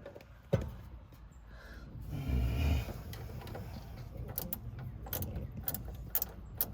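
Hand tools and wiring being handled: a single sharp click, a short rustling scrape, then a run of small, light clicks several times a second.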